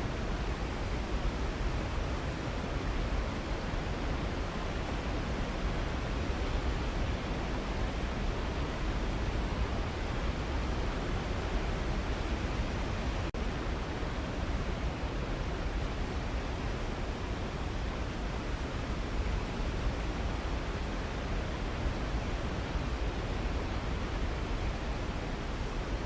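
Waterfall rushing steadily: an even hiss of falling water with a deep rumble underneath.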